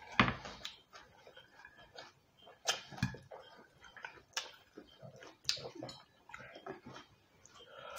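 Eating at a table: a knife and fork clicking and scraping on a plate, with chewing and mouth noises, as a string of short irregular clicks.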